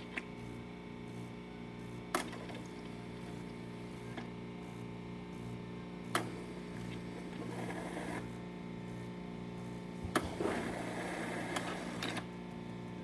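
Gaggia Academia super-automatic espresso machine running its cappuccino frother cycle with hot water: a steady machine hum with a sharp click about every two seconds, and a hissing spurt near the end as water flows from the frother.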